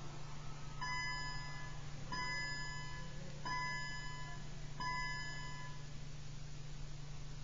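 A chime rings four times at the same pitch, evenly spaced about a second and a quarter apart, each ring lasting just under a second, over a steady low hum.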